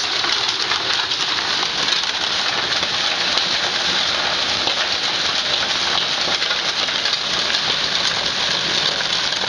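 Homemade ball mill running: a rotating plastic bucket with heavy shot puts and glass marbles tumbling inside, grinding charcoal, making a steady, dense rattle of many small clicks.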